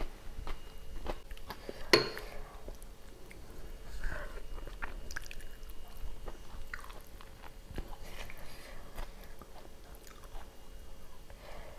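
Close-up chewing and mouth sounds of a person eating rice with rawon. About two seconds in comes a single sharp clink of a metal spoon against a ceramic bowl.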